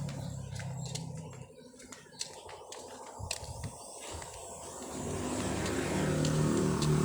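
A diesel vehicle engine running at low revs, fading after a second or so and then growing louder again toward the end, with scattered sharp metallic clicks from hand tools.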